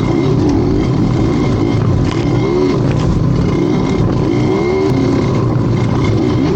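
A motor vehicle engine running loud and close, its revs rising and falling over and over with steady throttle changes.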